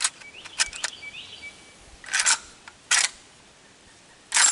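Metallic clicks and clacks from the PW87 lever-action 12 gauge shotgun being handled. There are a few light clicks, then three louder short clatters about a second apart.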